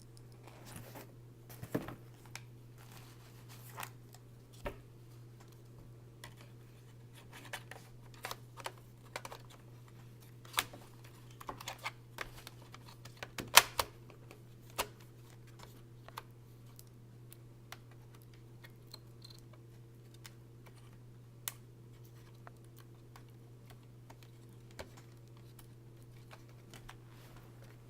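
Irregular clicks and taps of a laptop's plastic parts and keys being handled during repair work, with the loudest tap about halfway through. A steady low hum runs underneath.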